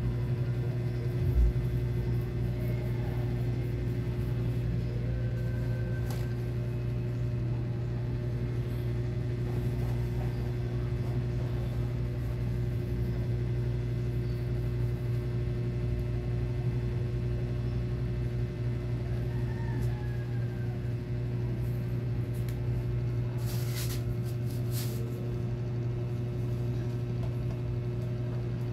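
Steady whirring hum of a hair dryer blowing air through a pipe into a homemade waste-oil burner stove, with the low rumble of the burning flame under it. A few brief clicks come near the end.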